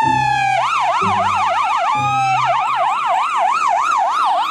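Ambulance siren: a wail sliding down in pitch, then a fast warbling yelp of about three rises and falls a second. It slides down once more about two seconds in and goes back to the warble, with low notes pulsing underneath about once a second.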